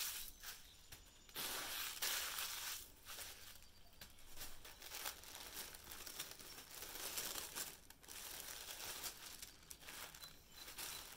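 Brown kraft paper wrapping crinkling and rustling in irregular stretches as a package is handled and unwrapped.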